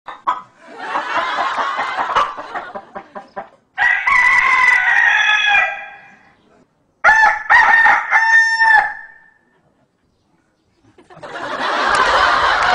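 Rooster crowing: two long crows about a second apart, each lasting around two seconds, after a rougher, scratchier stretch of sound at the start.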